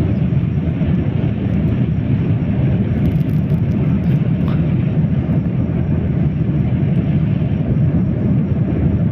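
Airliner cabin noise in cruise, heard from a window seat: a steady, even drone of the jet engines and rushing air, with no change in level.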